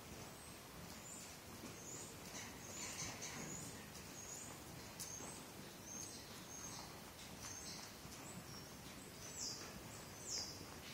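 Small birds chirping faintly, short high chirps that often fall in pitch, coming every half second to a second, over the soft, muffled hoofbeats of a pony trotting on sand footing.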